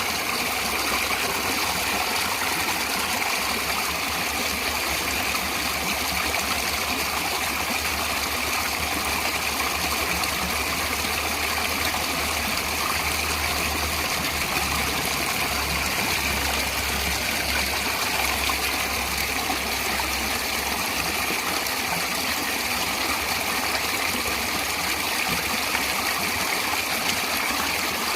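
Natural running water rushing steadily and evenly, with a low rumble underneath that fades out about two-thirds of the way through.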